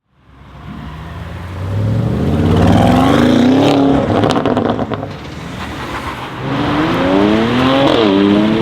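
Audi RS6 C8's twin-turbo V8, running catless downpipes and no particulate filter, revving up twice, each rev rising for a second or two before dropping. After the first rev, a quick run of sharp exhaust crackles is heard as the revs fall.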